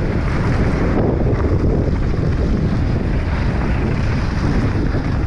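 Wind buffeting the microphone of a mountain bike's action camera as the bike runs fast down a dry dirt trail, mixed with the rumble of the tyres on the dirt.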